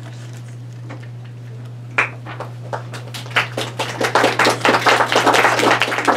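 Small audience applauding: a first clap about two seconds in, then many hands clapping, building to full applause near the end. A steady low hum runs underneath.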